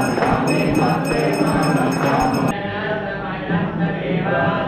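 Temple aarti: a group of voices chanting and singing while a bell rings in a rapid, steady rhythm. The bell stops abruptly about halfway through, and the chanting carries on.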